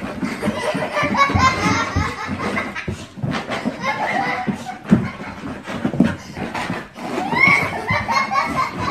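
People laughing hard, with bursts of excited talk mixed in.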